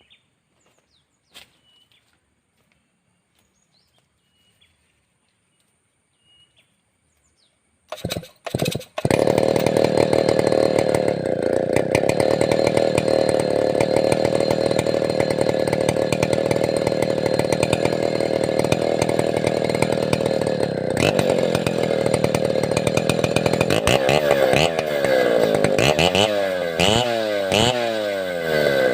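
Faint bird chirps over near quiet, then about eight seconds in a large two-stroke chainsaw of the Stihl 070 / New West 707 type catches after a couple of short bursts and runs loud and steady at high speed. In the last few seconds it is revved up and down over and over.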